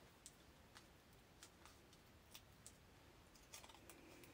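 Near silence: faint room tone with a few scattered, faint clicks.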